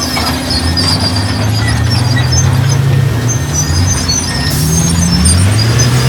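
Heavy diesel engine of earthmoving machinery running under load. Its pitch rises about a second in and again near the end as it revs.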